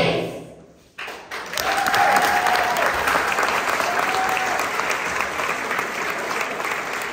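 A sung song fades out at the start, then about a second in an audience of children and adults in a school hall starts clapping and keeps up steady applause, with a couple of brief calls heard over it.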